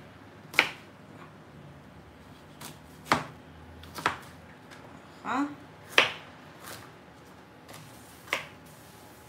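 Kitchen knife cutting firm quince pieces on a wooden cutting board: about five separate sharp knocks of the blade on the board, a second or more apart at an uneven pace, with a few lighter taps between them.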